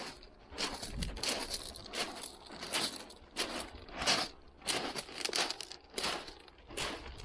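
Footsteps crunching on thick loose shingle, about two steps a second at a steady walking pace.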